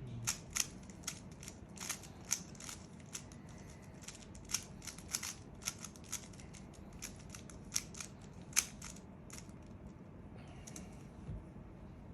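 Rubik's cube layers being turned by hand: a run of sharp plastic clicks, irregular and a few a second, thinning out near the end.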